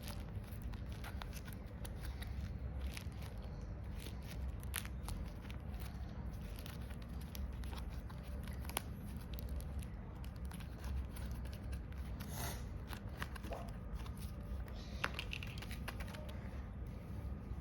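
Paper being handled, crinkled and torn open in short irregular crackles and clicks, over a steady low hum.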